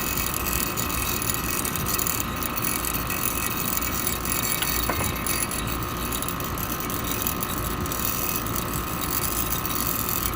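Refrigerant check valve in a running Trane heat pump outdoor unit, chattering with a rapid metallic rattle over the unit's steady running hum. The rattle is the check valve's internal chatter, heard here with its magnet kit removed; the magnet silences it.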